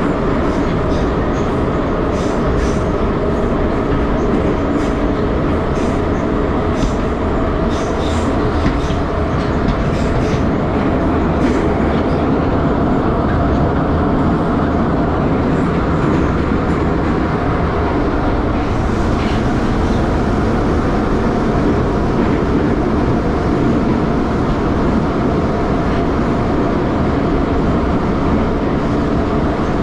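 Moscow metro Ezh3 subway car running at speed through a tunnel, heard from inside the passenger carriage: a steady, loud running rumble with a faint motor hum. A run of sharp clicks from the wheels and track comes through the first dozen seconds.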